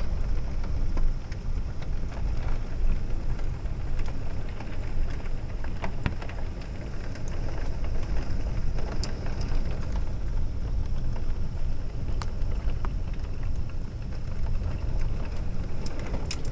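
Heavy rain pouring down steadily in a thunderstorm, under a constant low rumble, with scattered sharp taps and a few more close together near the end.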